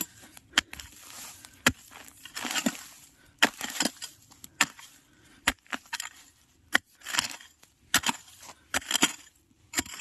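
A hoe chopping into stony soil to dig out a bamboo shoot: a dozen or more sharp strikes at an uneven pace, roughly one to two a second, with a longer scrape about two and a half seconds in.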